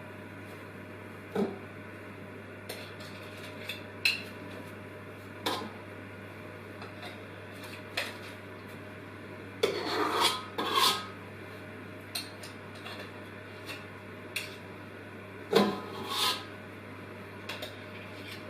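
A spoon scraping and tapping against a mixing bowl as meringue is scooped out, in short scrapes every second or two, with longer, louder scrapes around the middle and again near the end.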